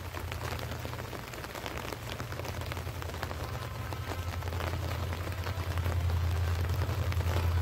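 Steady rain pattering in many small drop ticks, over a low rumble that grows louder in the last couple of seconds.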